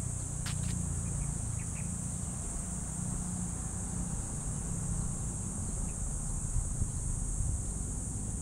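Steady high-pitched drone of insects in the trees, over a low rumble of wind on the microphone, with a few faint short chirps in the first two seconds.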